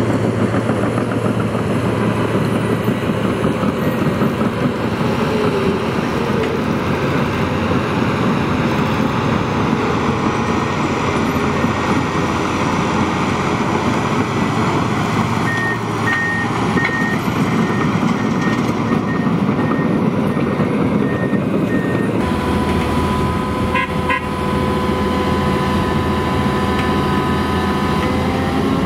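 Heavy diesel earthmoving machinery working: a large excavator digging and a Komatsu crawler dozer pushing soil. Past the middle, a reversing alarm beeps about twice a second for several seconds. Near the end the sound changes abruptly to a Komatsu PC800LC excavator's engine running steadily with a constant whine.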